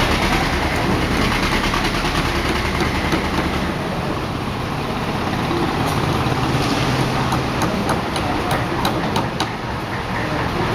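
An engine running steadily, with a heavier low rumble in the first few seconds and a few sharp taps near the end.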